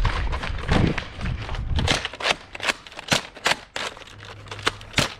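Quick footsteps on a patio, then a run of sharp mechanical clicks and snaps from a foam-dart blaster being primed and fired several times.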